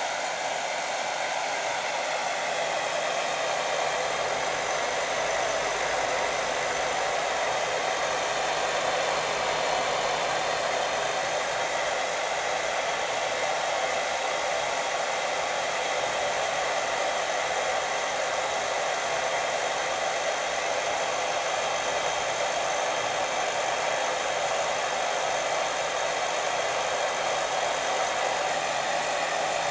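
Steady white noise for lulling a baby to sleep: an even, unbroken hiss, weighted to the middle and upper range with little bass.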